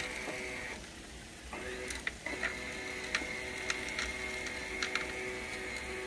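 A 12 V 1100 GPH bilge pump running with a steady whine, driving water through a homemade venturi dredge nozzle. The whine drops out briefly about a second in, and scattered sharp clicks sound over it.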